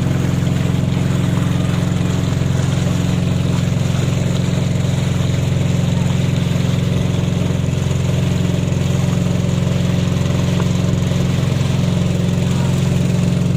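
A small boat's engine running steadily under way, a constant low drone heard from on board.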